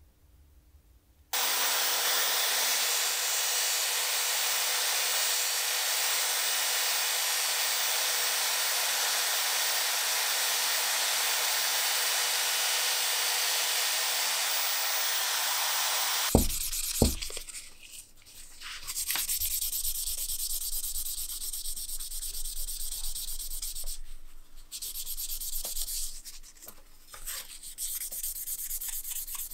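Sandpaper pressed against the pencil sharpener's steel shell as it spins in a power-tool chuck: a steady abrasive hiss over a faint motor hum that stops abruptly about halfway through. A couple of knocks follow, then uneven, stop-and-go rubbing as the shell is sanded by hand.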